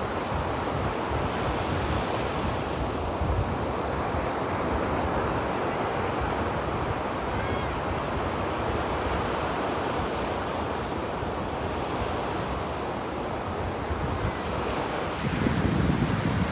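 Ocean surf washing steadily onto a beach, with a louder wave surging in near the end.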